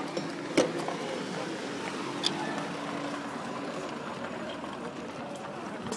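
Street noise with a car moving close by, and two sharp clicks, the louder one about half a second in.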